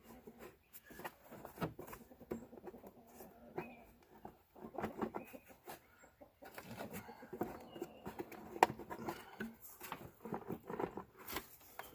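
Scattered clicks and knocks of the airbox tube and intake parts being handled and worked into place on the ATV, with chickens clucking.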